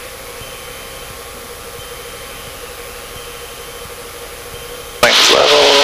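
Steady in-cabin drone of a Cessna 152's four-cylinder engine in flight. About five seconds in, a short, much louder burst of a voice cuts in.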